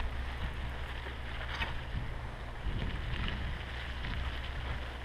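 Steady low rumble of wind buffeting a bicycle-mounted camera's microphone, with tyre noise as the bike rolls over a gravel path, and a faint click about a second and a half in.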